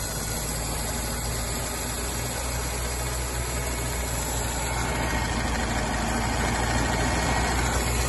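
Humber Super Snipe's six-cylinder petrol engine running steadily at idle, revived after long storage as a barn find.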